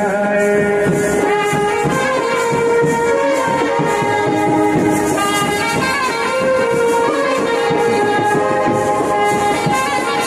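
Brass band playing a melody of long held notes over steady drum and cymbal beats.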